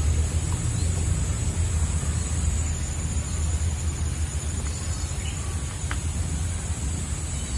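Steady low rumble with insects droning at one constant high pitch over it and a few faint bird chirps.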